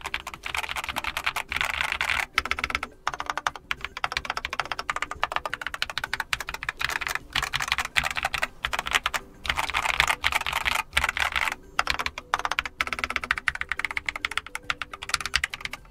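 Keychron K8 QMK Version 2 mechanical keyboard with Keychron Banana tactile switches being typed on quickly while it rests on a small felt desk pad, which softens and changes the key sound. The typing is a continuous stream of key clacks with a few brief pauses.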